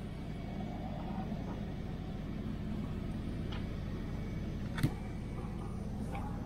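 Steady in-cabin engine and road noise of the LS-swapped 1968 Chevelle Nomad wagon rolling along slowly, with a single sharp click a little under five seconds in.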